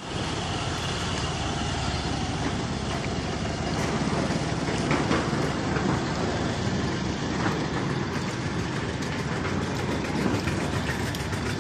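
A vehicle engine running steadily under a constant noisy rumble.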